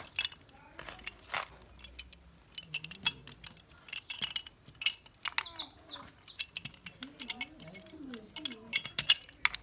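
Irregular light clinks and taps of small hard objects, metal or glass, knocking together, several a second at times. Faint wavering voice sounds come in from about seven seconds in.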